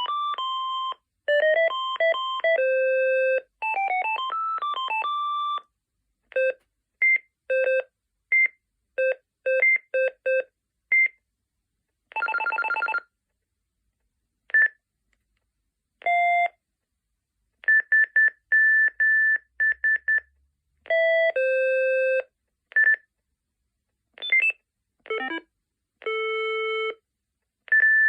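Preloaded ringtones of a Telular SX5D Phonecell playing one after another: short electronic beep tunes of a few notes each, separated by pauses. About twelve seconds in comes a brief fast warbling trill, and later a run of evenly repeated single beeps.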